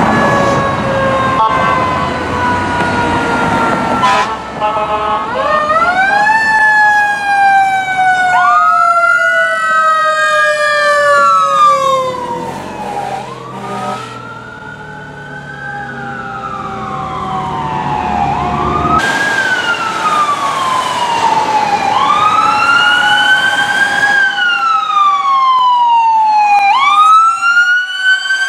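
Emergency vehicle sirens on responding fire-rescue apparatus. A long falling tone opens it. Then wail sirens rise and fall every few seconds, often two sounding together, with a fast yelp near the end.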